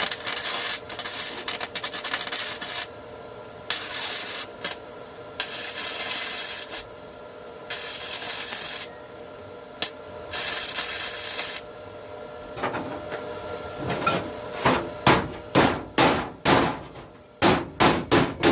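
Long scraping strokes of about a second each, like hand sanding or filing, followed about two-thirds of the way in by hammer blows that speed up to two or three a second, typical of restoration bodywork.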